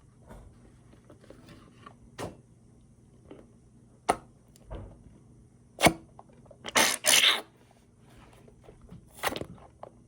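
Handling noises of a squeeze-ball slime toy and slime: scattered sharp clicks and short squelching, sucking bursts, the loudest cluster about two-thirds of the way in.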